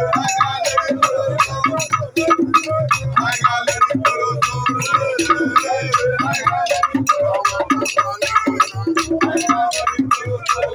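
Traditional Igbo group music: several men singing together over hand drums, with a quick, steady clicking from a hand-held wooden cross-shaped clapper.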